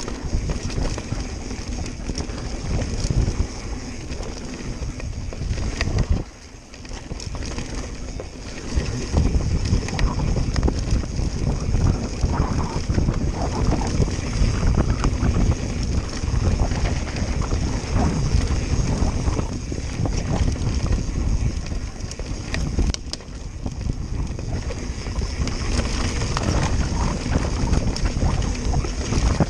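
Wind buffeting the microphone: a loud, steady low rumble that dips briefly about six seconds in.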